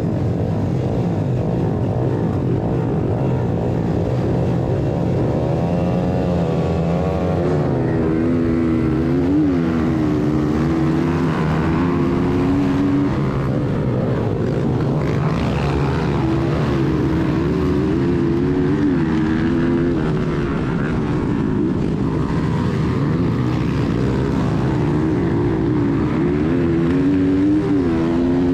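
1996 Honda XR100R's small four-stroke single-cylinder engine running at the start line, then pulling away about six seconds in and revving up and down through the gears, with the engines of a pack of other minibikes around it.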